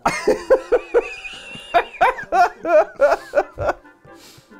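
Laughter: a giggling "eh-heh-heh-heh" in quick pitched pulses that breaks off a little before the end.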